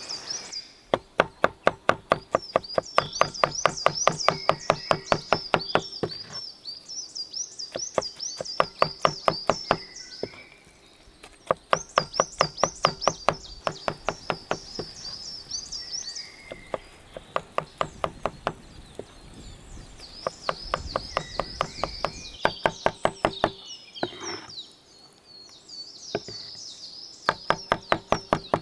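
Kitchen knife chopping grilled eggplant on a wooden cutting board: quick runs of knocks, about five a second, broken by short pauses.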